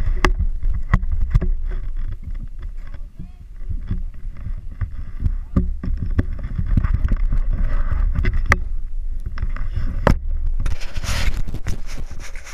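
ATV engine running as the quad rides over a snowy trail, a low rumble heard through a helmet-mounted camera, with many sharp knocks and rattles from the bumpy ride. A loud rustling hiss comes in near the end.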